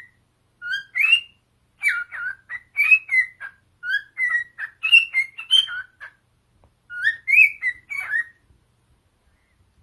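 Male cockatiel whistling its song: a quick run of short chirpy whistled notes that slide up and down in pitch, stopping about a second and a half before the end.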